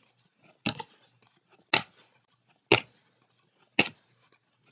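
Football trading cards being sorted one at a time by hand, each card giving a sharp click: four clicks about a second apart, with fainter card ticks between.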